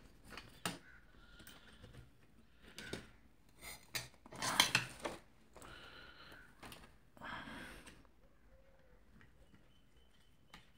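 Clatter and rubbing of a battery charger's circuit board and metal case being handled as the board is taken out, a few separate bursts with the loudest about halfway through, then quiet for the last few seconds.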